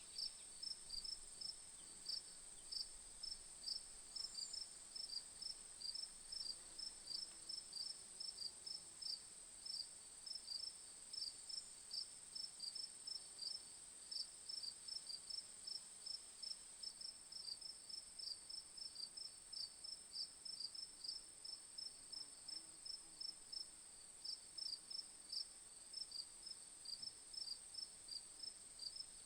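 Crickets chirping: a regular train of short, high chirps, several a second, over a steady high-pitched trill.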